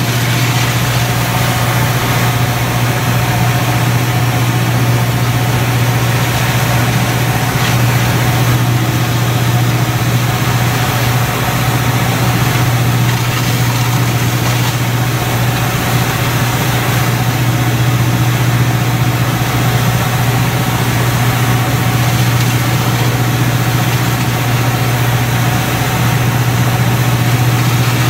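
A boat's engine and fire pump running with a steady low drone while the water cannon sprays, with a constant hiss over it.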